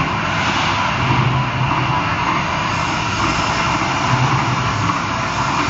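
CNC lathe running: a steady machine noise with a low hum that swells and fades now and then.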